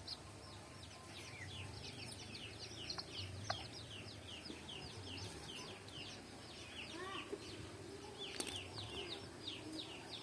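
A group of chicks peeping nonstop, with many short, high, falling cheeps overlapping one another. There is one sharp click a little after eight seconds.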